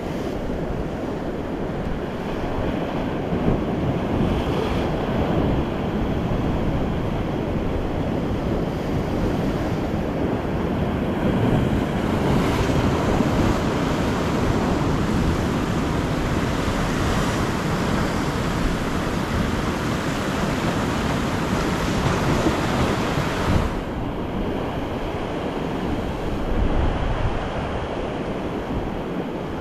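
Ocean waves surging and washing against coastal rocks, with wind buffeting the microphone. The wash swells louder and hissier through the middle, then drops back sharply about three-quarters of the way through.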